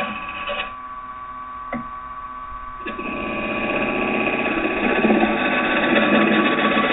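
Wood lathe running with a steady motor whine while a carbide-tipped turning tool cuts a spinning blank of green oak. The cutting noise drops away for about two seconds, then starts again abruptly about three seconds in and grows louder.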